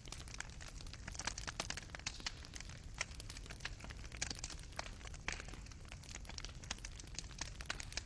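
Fireplace fire crackling and popping: burning wood and coals giving irregular sharp snaps over a low, steady rumble of the flames.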